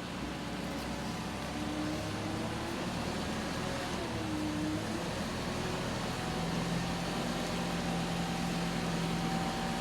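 A heavy vehicle's engine running steadily, with a steady higher hum joining in about six seconds in.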